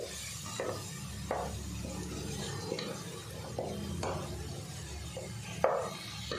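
A spatula stirring and scraping thick tomato masala paste in a pressure cooker, in short irregular strokes against the pan, over a low steady hum.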